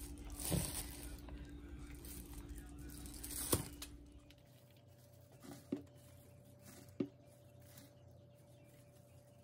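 Faint rustling and soft knocks of shredded lettuce being scattered by a plastic-gloved hand over a tray of fried snacks, over a steady low hum. The hum changes pitch about four seconds in, and two sharp light taps follow later.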